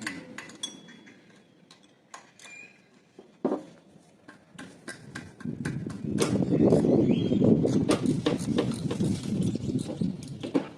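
Hand work in an engine bay: scattered metallic clicks and knocks, then from about six seconds in a few seconds of dense, loud rattling clatter that stops near the end. A few short bird chirps are heard.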